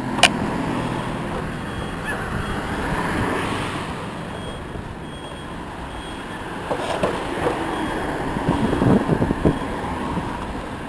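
Power wheelchair driving over a wet, cracked concrete sidewalk: a steady rolling rumble of motor and tyres. There is a sharp click just after the start, and a cluster of knocks and rattles about seven to nine and a half seconds in as the chair jolts over the rough, broken pavement.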